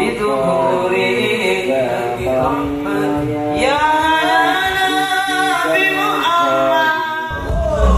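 A solo voice sings a sholawat, an Islamic devotional song, in long melismatic phrases whose pitch slides and curls. A deep bass comes in near the end.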